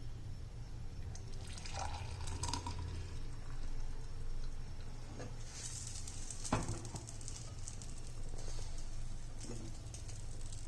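Herbal kadha being poured from the pan through a strainer into a glass: liquid trickling and splashing in two spells, with a single light knock of metal about six and a half seconds in.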